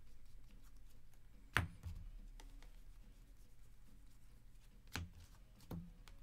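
Stack of baseball trading cards being thumbed through by hand, card after card flicked over with faint ticks. A sharp click comes about a second and a half in, and two more near the end.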